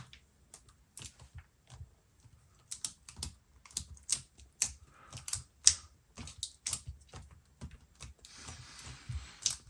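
Irregular light clicks and taps, a few a second, as fingers press down on a freshly fitted MacBook Pro battery inside the open case, seating it on its adhesive. A soft rubbing sound near the end.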